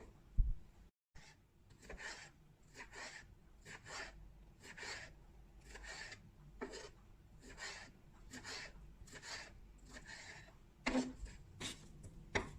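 Repeated short scraping strokes during food preparation, about two a second, with a sharper knock just after the start.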